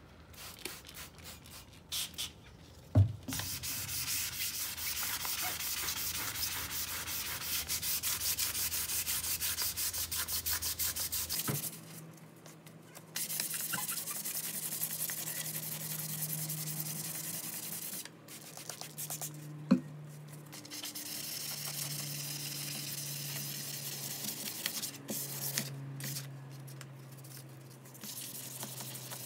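A sanding pad rubbed back and forth along a steel hand saw blade to take off rust: a steady scratchy rasping in long stretches with short pauses. Two sharp knocks come about 3 seconds in and again near the 20-second mark.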